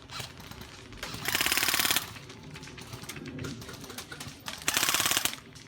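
Airsoft gun firing two short full-auto bursts of rapid, evenly spaced shots, each under a second long and about three seconds apart, with fainter scattered shots between them.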